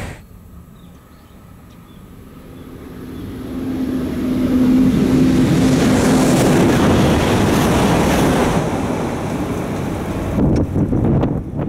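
E926 "East i" Shinkansen inspection train passing at high speed. It builds from a faint rush to a loud roar over about two seconds, with a steady hum as it closes in, stays loud for several seconds as the cars go by, then eases off. A few sharp knocks come near the end.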